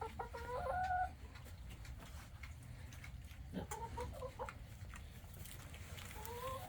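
Hens calling: a drawn-out call of about a second at the start, a few short clucks in the middle, and a longer call rising at first and then held near the end.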